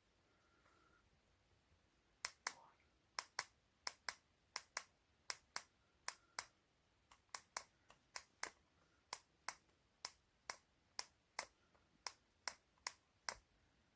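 A series of sharp, short clicks, often in quick pairs, about two a second, starting about two seconds in.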